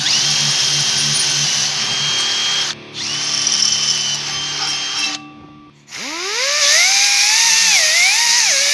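Milwaukee cordless drill drilling out old rivets in an ATV grab bar: two steady runs of about two and a half seconds each, with a short stop between. About six seconds in, a Scotch-Brite abrasive wheel spins up with a rising whine, its pitch dipping and recovering as it is pressed against the metal to smooth scrape marks.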